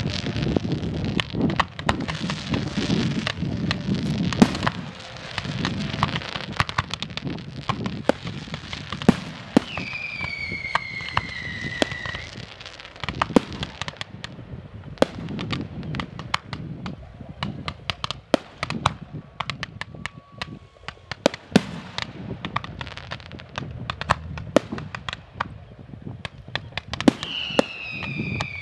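Fireworks display: a dense run of bangs and crackling pops. A falling whistle from a whistling firework sounds twice, about ten seconds in and again near the end.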